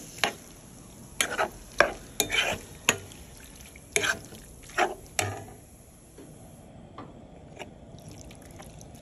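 Silicone spatula stirring ground turkey and corn in a nonstick pan: a string of short scraping, squelching strokes, about two a second, for the first five seconds or so, then quieter, lighter stirring with small ticks.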